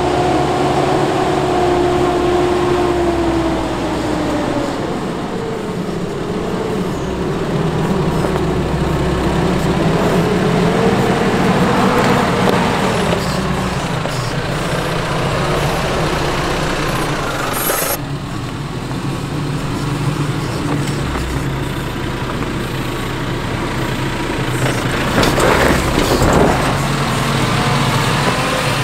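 Nissan Navara 4x4 ute crawling slowly down a steep rocky track, its engine running at low revs with a note that wavers up and down, and a few crunches of tyres over rock.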